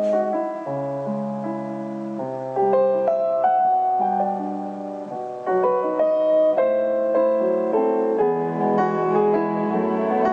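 Background piano music: notes and chords changing every half second or so.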